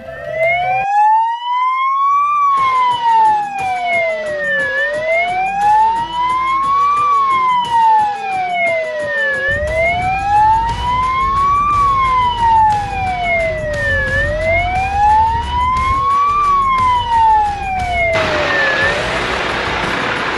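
Fire engine siren wailing, its pitch rising and falling slowly about four times, with scattered clicks under it. It gives way to a rushing noise near the end.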